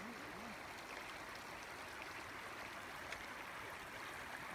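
Shallow water running steadily over stones and gravel where a stream meets a lake's edge.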